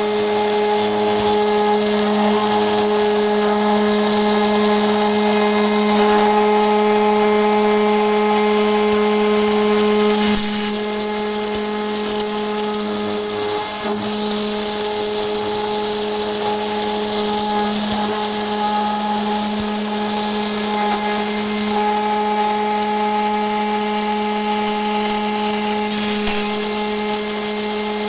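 CNC router spindle running steadily while its end mill cuts aluminium: a steady whine with a high, hissing cutting band on top. The sound drops a little about ten seconds in.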